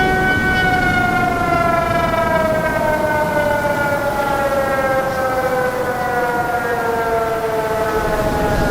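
Tsunami warning siren wailing: one long tone with overtones, sliding slowly down in pitch and then starting to rise again near the end, over a steady low rumble.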